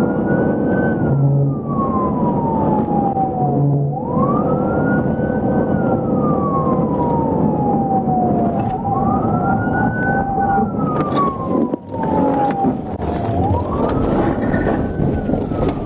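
Police car siren on its wail pattern. Each cycle climbs quickly in pitch, then falls slowly, repeating about every four and a half seconds over a steady rumble of engine and road noise.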